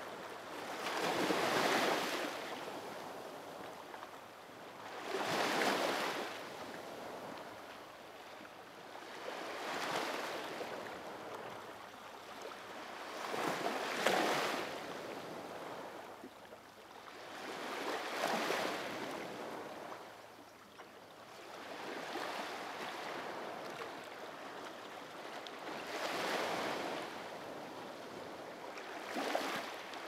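Sea waves breaking in a slow, even rhythm, about one every four seconds, each swelling to a hiss of surf and then fading back.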